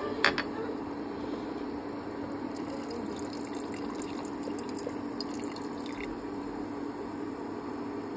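Pot of rogan josh curry boiling steadily with a low bubbling, and a spice-and-water mixture poured into it from a bowl in the middle, adding splashing and crackle. A sharp clink just at the start.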